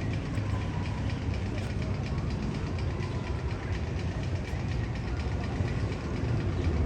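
A steady low rumble with faint regular clicking, about three or four clicks a second, like a train running on rails.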